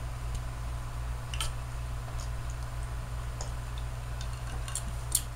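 Ice cubes clinking in a glass of orange juice and vodka: a few faint, scattered clicks, the sharpest near the end, over a steady low hum.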